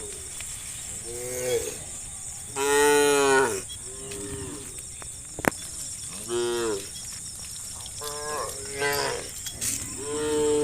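Cattle mooing, about five separate moos of varying pitch and length, the loudest about three seconds in and a long one starting near the end. A single sharp click about halfway through.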